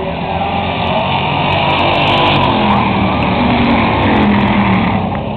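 Stock cars racing on a short oval, their engines growing louder as the pack comes past close by, then easing off near the end.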